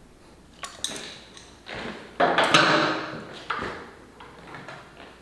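Metal hand tools clinking and clattering against the bolts and steel frame of a motorcycle's side-case mount as bolts are worked loose. A few light clicks, then the loudest clatter about two seconds in that rings briefly, then scattered small taps.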